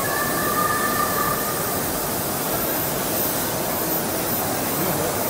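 Steady machinery noise, an even mechanical rush with no breaks. It carries a faint two-note whine over the first couple of seconds.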